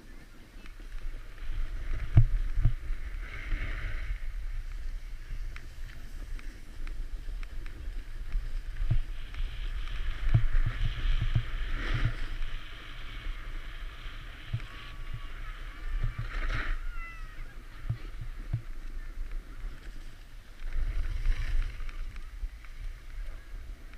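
Wind buffeting the microphone of a body-worn action camera on a descent down a ski run, with a rush of edges scraping over packed snow that swells and fades every few seconds through the turns.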